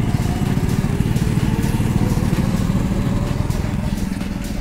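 Small petrol go-kart engine running hard as a kart drives close past, a fast buzzing engine note that eases off slightly near the end as it pulls away.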